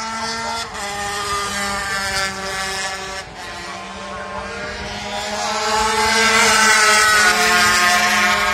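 250cc two-stroke racing motorcycles running at high revs, their engine note wavering slightly in pitch. It grows louder to a peak about seven seconds in as the bikes come closer, then begins to ease.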